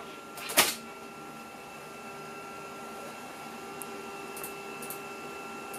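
A floppy disk is pushed into the Macintosh SE's floppy drive with a clunk about half a second in, then the drive runs with a steady whirr as it tries to read the 800K disk, with a few faint ticks later on. The read fails: the disk comes up as not a Macintosh disk, a failure the owner puts down to the WarpSE accelerator not respecting the motherboard's timing-critical floppy timings.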